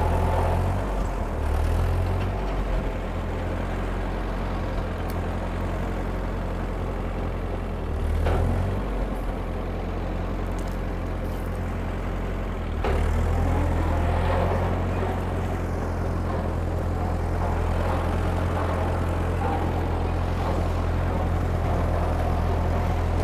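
1948 Ford 8N tractor's four-cylinder engine running steadily while it drives a Woods Dixie Cutter M5 rotary brush cutter through brush. The engine note drops back for a few seconds, swells briefly about eight seconds in, then steps up louder about halfway through and holds.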